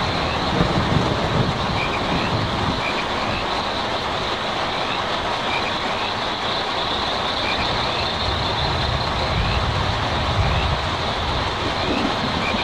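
Steady rain drumming on a tin roof, an even dense hiss, with a low rumble coming and going underneath and faint short chirps now and then.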